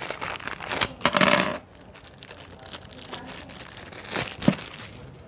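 Small plastic action-camera mount parts being handled, with plastic crinkling and rustling through the first second and a half. A single sharp click comes about four and a half seconds in.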